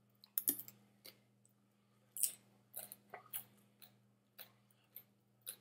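A person chewing food close to the microphone: a scattered run of soft wet clicks and smacks, the loudest a little after two seconds in, over a faint steady electrical hum.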